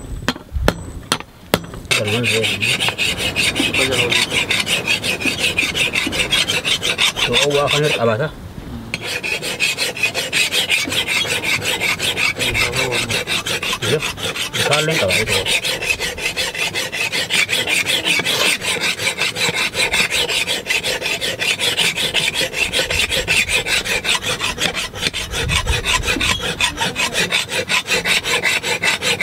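Hand file scraping in quick back-and-forth strokes across the edge of a hand-forged iron axe head, filing it sharp. A few sharp knocks come first, then steady filing with a brief pause about eight seconds in.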